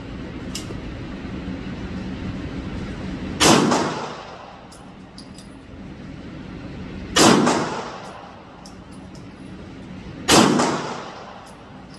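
Three loud single shots from an AR-15 rifle, fired a few seconds apart, each ringing out in the echo of an indoor range.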